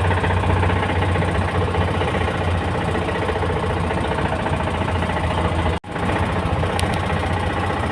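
GAZelle van engine running under way with a heavy, steady knocking and rattling: damaged internals after the throttle jammed wide open and over-revved the engine. The sound cuts out for an instant about six seconds in.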